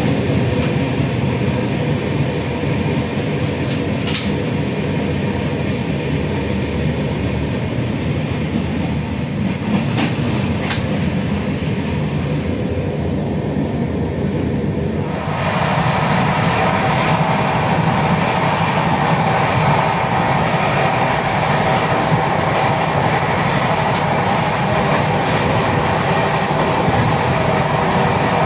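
Tejas Rajdhani Express coach running along the track, heard from inside the carriage: a steady rumble of wheels on rails with rail clatter and a couple of sharp clicks. About halfway through the sound jumps abruptly to a brighter, slightly louder running noise.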